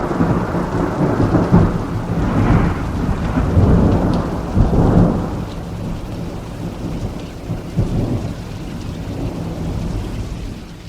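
Thunderstorm: thunder rumbling over steady rain. The thunder rolls are loudest in the first half and then die away, and the whole storm fades out near the end.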